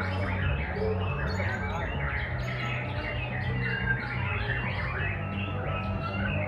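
Several caged white-rumped shamas singing at once in a songbird contest, a dense, unbroken mix of overlapping whistles and chirps over a low steady hum.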